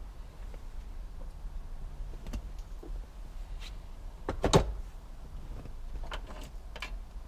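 Scattered clicks and knocks of dashboard parts and wiring-harness connectors being handled and plugged in, over a low steady hum; the loudest is a short cluster of knocks about four and a half seconds in.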